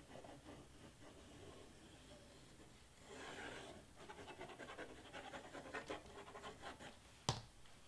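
Faint airy sputtering and crackling from a squeeze bottle of craft glue as it is pressed along the edge of a cardstock letter, followed a little after seven seconds by a single sharp knock.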